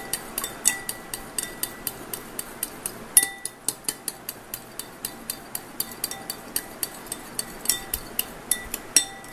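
A metal spoon beating curd in a glass bowl, clinking against the glass about two to three times a second, each clink ringing briefly.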